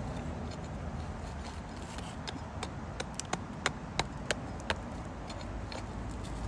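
A hand digging tool chipping at a layer of river flood-deposit clay: about nine sharp taps and clicks, bunched between two and five seconds in, over a low steady background noise.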